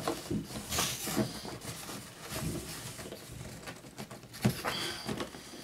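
Cardboard toy box and plastic packaging being handled, with scattered rustles and light knocks and one sharper knock about four and a half seconds in.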